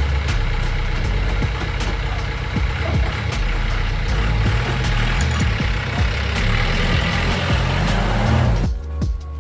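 An engine running with a steady low rumble and scattered clicks. It cuts off abruptly near the end, where background music with a beat takes over.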